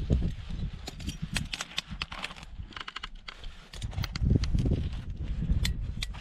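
Ice-axe pick and crampon points clicking and scraping on snowy granite while dry-tooling up a crack, in a run of irregular sharp taps. A low rumble runs underneath, swelling at the start and again about four seconds in.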